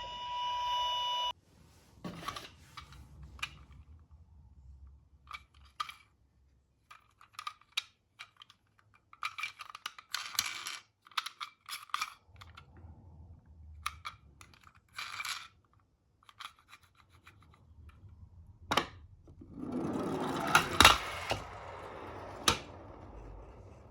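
Die-cast toy cars being handled: scattered light clicks and small metallic rattles, with a denser stretch of rattling and a few sharper clicks near the end. A steady electronic tone, like a toy siren or beep, cuts off about a second in.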